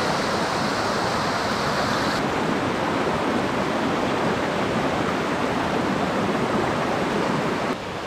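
Waterfall cascading over rocks: a steady rush of falling water, a little duller from about two seconds in.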